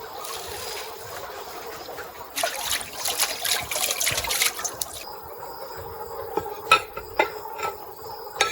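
Liquid pouring or trickling for a couple of seconds, followed by a few light clinks.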